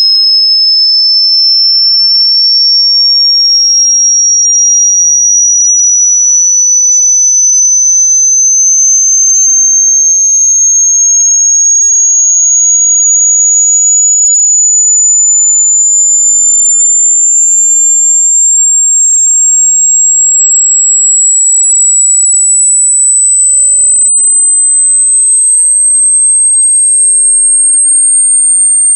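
A single high-pitched pure electronic tone, loud and unbroken, gliding slowly and steadily upward in pitch.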